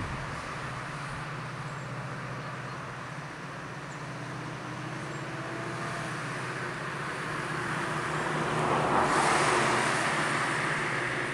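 Low rumble of approaching diesel-electric locomotives, a DSB ME leading NSB Di4 654, heard before they come into view: a steady low hum under a rushing noise. A louder rush of noise swells about eight to nine seconds in and then eases slightly.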